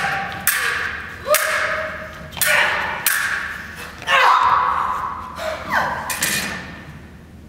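Stage-combat sword fight: a rapid series of about eight sharp clashing strikes, each ringing and echoing in a large hall.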